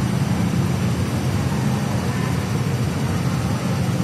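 MTR M-Train standing at the platform with its doors shut, giving a steady low hum and rumble with no rise in pitch.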